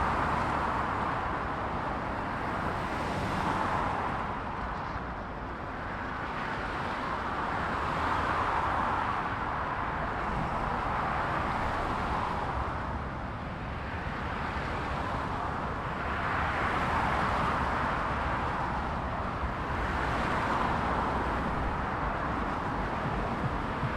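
Dense motorway traffic recorded close up: a continuous stream of cars passing at speed, tyre and engine noise swelling and easing every few seconds as vehicles go by.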